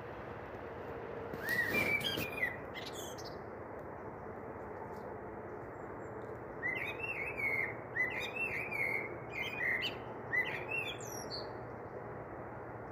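A small bird chirping in quick series of short, sweeping chirps: a brief burst about two seconds in, then a longer run through the middle and later part, over a steady background hiss.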